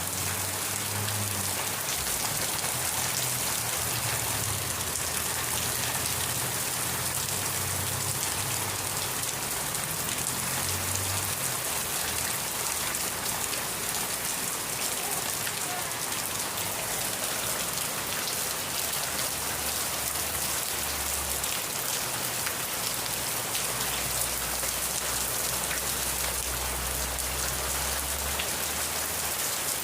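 Steady rain falling: an even, unbroken hiss made of many fine drop ticks, holding the same level throughout.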